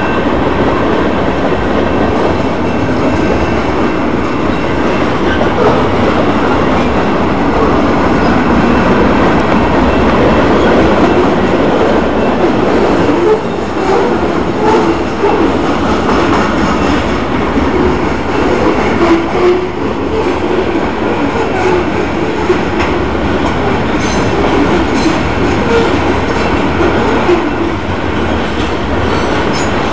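Freight train cars rolling past close by: a steady, loud rumble and rattle of wheels on rail, with sharp clicks of wheels over the rail joints, more frequent in the later part.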